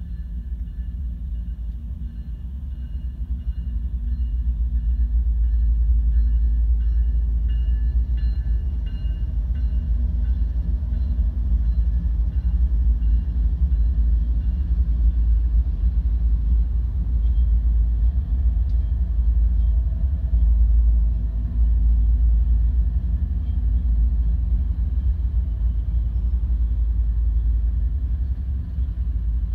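A BNSF freight train's diesel locomotives pass at close range, followed by double-stack intermodal container cars rolling by. It is a steady, heavy low rumble that grows louder a few seconds in as the train arrives, heard from inside a car.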